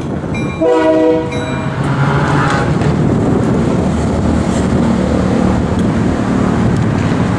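A diesel locomotive, an MLW/ALCO C424, sounds one short horn blast about half a second in, lasting under a second. Its engine and train rumble on steadily underneath.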